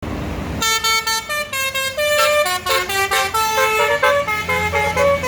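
Tour bus telolet horn playing a quick melody of shifting horn notes, starting about half a second in, over the low hum of the bus's engine.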